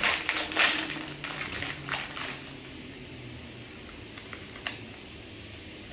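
Crinkly plastic snack bag being handled and opened, a dense crackle for about two seconds, then quiet apart from a few faint clicks.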